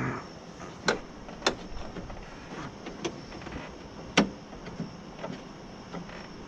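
Parts being worked inside a car door while a window regulator and track are refitted: a brief sliding scrape that falls in pitch at the start, then several sharp metallic clicks and knocks, four of them loudest.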